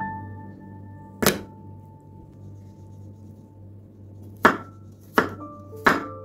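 Chef's knife on a wooden cutting board: one sharp knock about a second in, as the flat of the blade is pressed down on a garlic clove, then three chops through the clove into the board near the end, about two-thirds of a second apart. Soft sustained music notes underneath.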